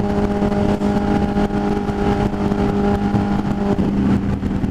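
Motorcycle engine running at steady cruising revs, a constant drone with wind rushing over the microphone.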